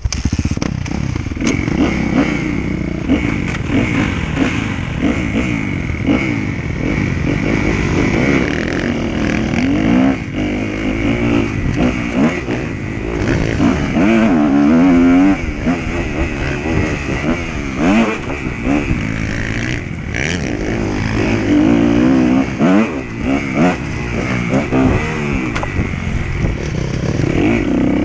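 Motocross dirt bike engine being ridden hard, its pitch rising and falling again and again as the throttle opens and closes, heard close up from a camera mounted on the bike. It starts loud all at once at the beginning.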